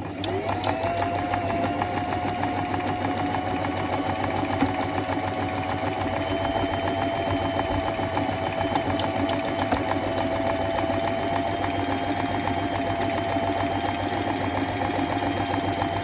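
Janome Harmony 2049 sewing machine starting up and running steadily at speed, stitching a buttonhole: a steady motor whine with fast, even needle strokes.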